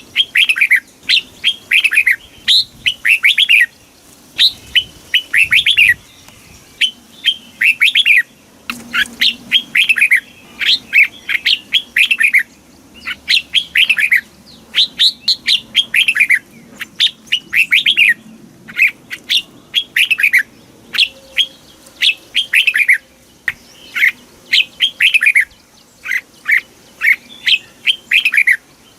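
Red-whiskered bulbul singing: quick, loud phrases of short downward-sweeping whistled notes, repeated about once a second without a break.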